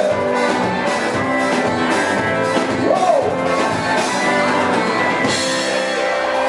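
Background pop song playing, with guitar and drums.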